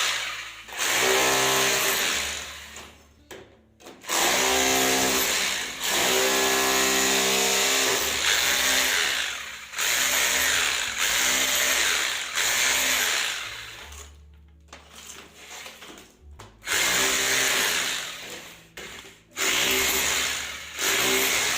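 JCB JKD 3200 SDS-plus rotary hammer with a bit fitted, running into old, hard concrete in a series of short bursts of a second or two each, with a quieter pause about two-thirds of the way through.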